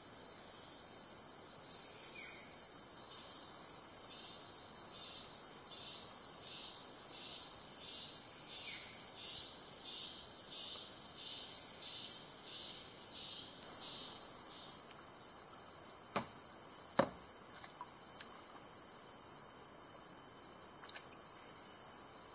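Steady, high-pitched buzzing chorus of tropical insects in mangrove forest, with a faint rhythmic pulsing under it for the first half. It drops somewhat in level a little past halfway. Two sharp clicks come about two thirds of the way through.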